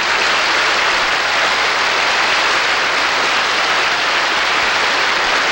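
Audience applauding steadily, a loud, even clapping for a guest who has just been introduced.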